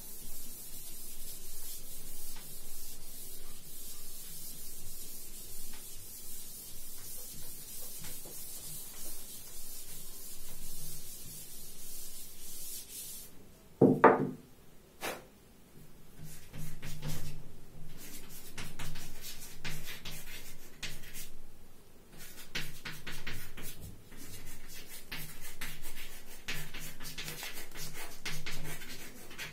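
Chalkboard being wiped with a duster: a steady rubbing hiss for about thirteen seconds. About halfway through there is a short loud sound, then chalk writing on the blackboard in quick scratching and tapping strokes.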